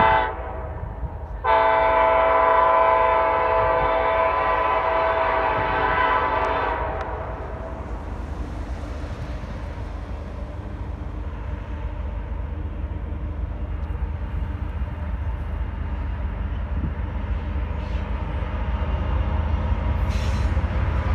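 Freight locomotive's air horn: a brief blast, then a long chord blast of about five seconds starting a second and a half in. After it fades comes the low rumble of the approaching container stack train, growing louder toward the end.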